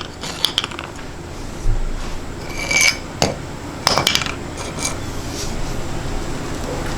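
Metal engine parts, connecting rods and pistons from a torn-down Ford Coyote 5.0 short block, clinking and clanking as they are handled and set down. There are scattered sharp clinks, a few of them ringing, mostly in the first four seconds.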